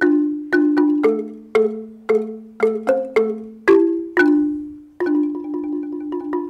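Marimba played with mallets: struck, ringing notes about two a second, often two notes sounded together, and a fast roll of rapidly repeated strokes near the end.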